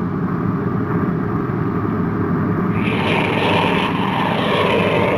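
Rocket-engine roar sound effect for a flying spaceship: a steady rushing rumble that grows brighter and fuller about three seconds in.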